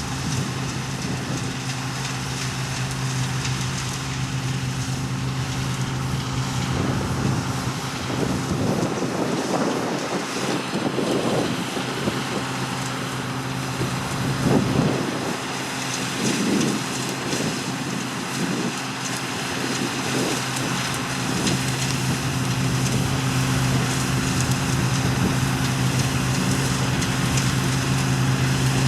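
Engine of harvest machinery running steadily with a constant hum, with wind on the microphone and a few brief irregular noises in the middle.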